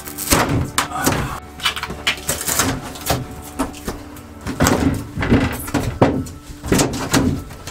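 RV shower surround panel being pulled away from the wall and worked out of the shower enclosure: irregular scraping, crackling and knocks as the thin panel flexes and rubs against the frame.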